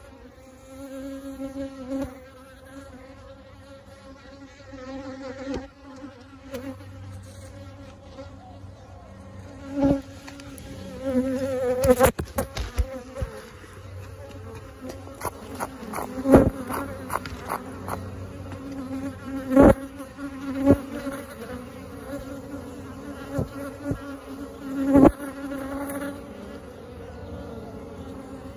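A bee swarm buzzing steadily as agitated bees fly around their colony in the wall. Now and then a single bee zips right past, a sudden loud buzz that rises and falls within a second, several times.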